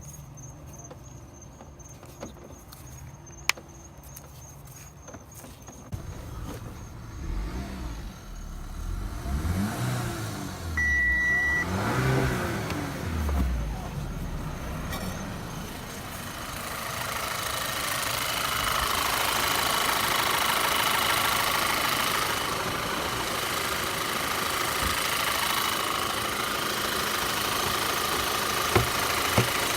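Audi A4's 2.0 turbo four-cylinder engine running, revved up and down a few times in the middle, then running on with a loud, steady whistling squeal. The noise comes from a failed PCV valve diaphragm, which also leaves the engine idling rough and down on power.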